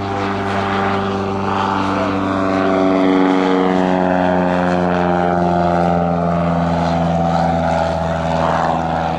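Mooney M20J single-engine propeller plane running at full power as it departs. The steady engine-and-propeller drone is loudest about three seconds in, then its pitch slides gently lower as the plane passes by.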